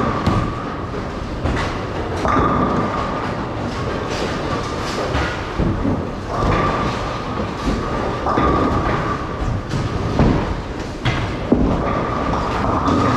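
Bowling alley din: bowling balls rolling down the wooden lanes with a continuous rumble, and several sharp crashes of pins being struck. A high whine from the lane machinery comes and goes over it.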